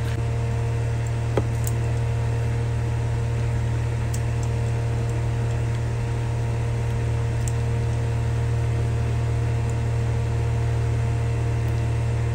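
Steady mechanical hum of a running motor, even throughout, with a few faint taps of a spatula against the pan.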